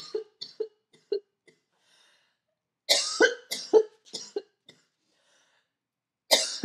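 A woman coughing in fits: a run of short coughs in the first second or so, a louder burst of several coughs around three to four seconds in, and one more cough near the end.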